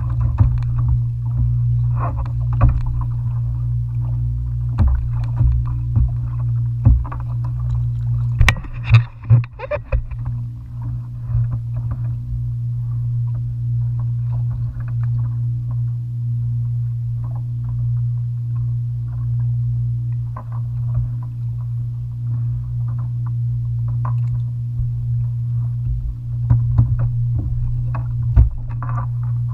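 A plastic sit-on-top kayak on the open sea: water slapping against the hull over a steady low rumble, with scattered knocks and clicks of gear against the hull, the sharpest about eight and a half seconds in.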